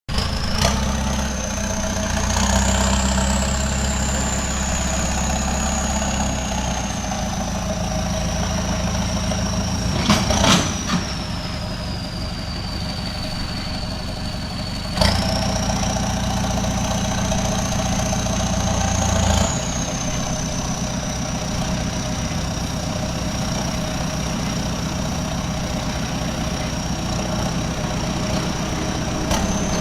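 Bulldozer's diesel engine running steadily, pulling harder in two stretches, with a high whine that rises and falls. Sharp metallic knocks come about ten seconds in and again at about fifteen seconds.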